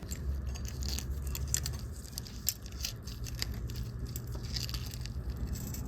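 Small scattered clicks and taps of watchmaker's tools on the parts of a pocket watch movement as it is taken apart, over a steady low hum.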